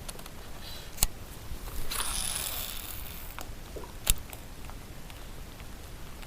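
A fishing cast: a sharp click, then line hissing off a reel for about a second and a half, then another sharp click a little after four seconds.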